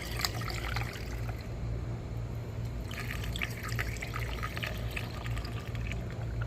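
Water rinsed from a bottle of head-gasket sealer being poured into a car's cooling system, trickling with small splashes that grow busier about halfway through. A steady low hum runs underneath.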